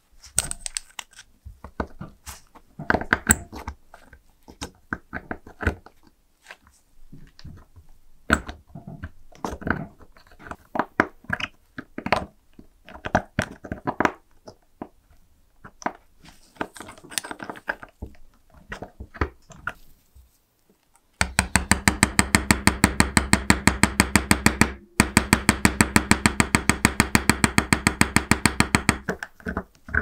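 A thin pointed steel tool scraping, clicking and prying against a small dented brass lighter tank in irregular bursts. Later comes a fast, even run of loud metallic taps, several a second, broken once by a short pause.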